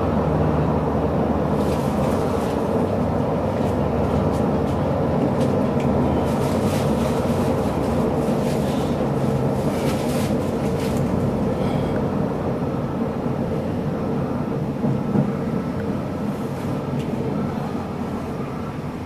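Bombardier Variotram tram running along street track, heard from inside the car: a steady rumble of the running gear. There is a stretch of sharp clicking and hiss from the wheels on the rails around the middle, and the noise gets somewhat quieter near the end.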